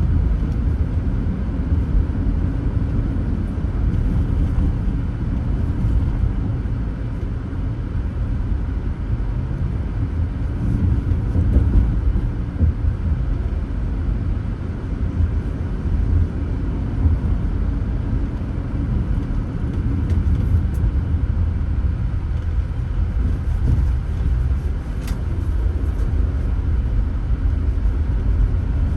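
Steady low rumble of a car being driven along a road: engine and tyre noise heard from inside the cabin.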